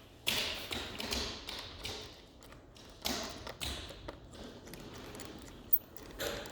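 Small taps, clicks and scrapes of a screwdriver and laptop parts being handled as the screen hinges are screwed down, in a few short bursts with one sharp click near the end.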